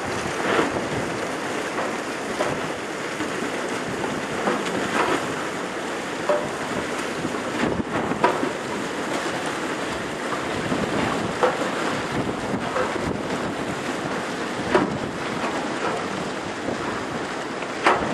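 Steel hull of a Great Lakes freighter pushing through harbor ice: a steady crunching, hissing grind with scattered sharp cracks every few seconds.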